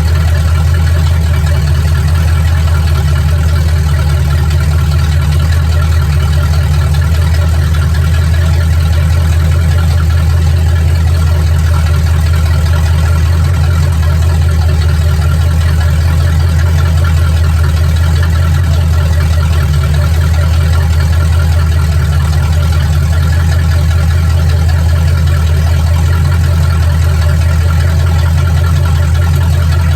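Truck engine idling steadily, with a loud, even low hum that does not change.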